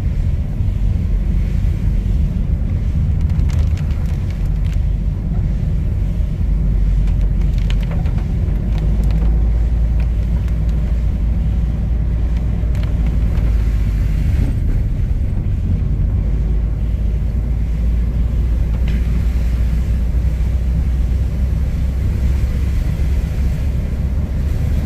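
Car driving on a wet road, heard from inside the cabin: a steady low rumble of engine and road noise.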